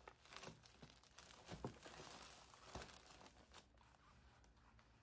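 Faint crinkling of clear plastic garment packaging as it is handled, a scatter of small crackles that dies away after about three and a half seconds.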